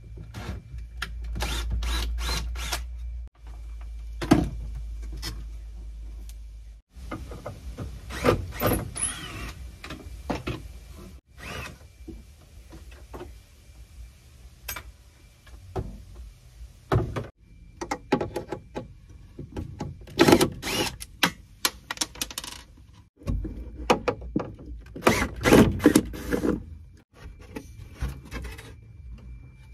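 Repeated knocks, taps and clatter of wood and hand tools as a pine counter-top is worked on, in several short clips that cut off abruptly, with a low rumble during the first few seconds.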